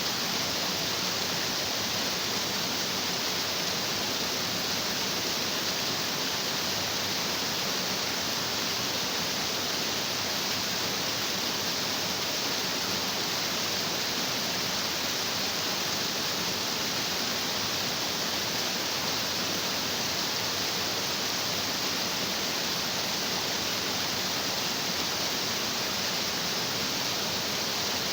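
Stream water rushing and splashing over rocks, a steady, even hiss without pauses or changes.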